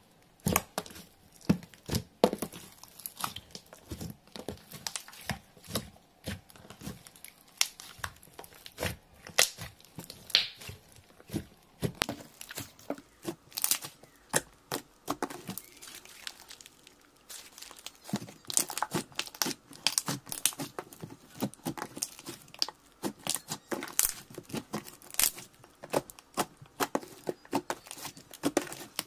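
Hands squishing, pressing and folding a mix of fluffy white slime and glossy orange slime. This gives an irregular run of small sticky pops and crackles, which comes thicker and faster over the last ten seconds or so.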